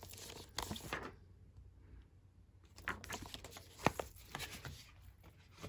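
Faint handling of cardboard-cased eyeshadow palettes: scattered light taps and rustles, a nearly silent stretch between about one and three seconds in, and a sharper tap about four seconds in.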